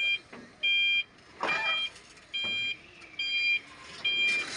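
ACE forklift's warning beeper sounding a steady two-tone beep, a little faster than one beep a second, about six times. Two short hissing rushes break in, the second near the end.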